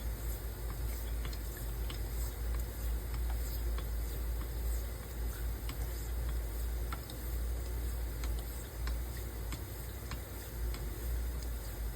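Straight razor being honed on a wet natural sharpening stone: the blade slides and ticks against the stone in many small, irregular clicks. A steady low hum runs underneath and is the loudest part.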